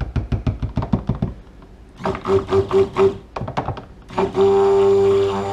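A stick blender blending cold process soap batter: a quick run of sharp knocks, about eight a second, then the motor pulsed in four short bursts, then run steadily from about four seconds in with a steady hum.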